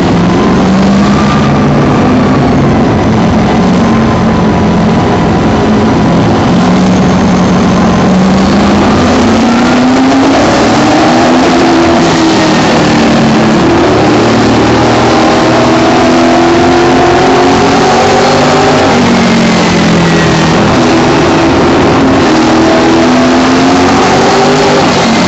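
Late model race car's V8 engine running hard, heard from inside the cockpit, loud and steady. Its pitch rises and falls several times as the driver opens the throttle and lifts, with other race cars' engines mixed in close by.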